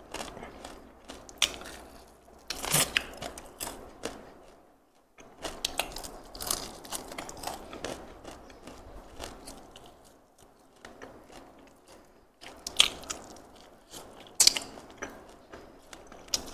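A person chewing and biting pieces of fried chicken held in the hand, with irregular sharp crunches between quieter chewing; the two loudest crunches come in the last few seconds.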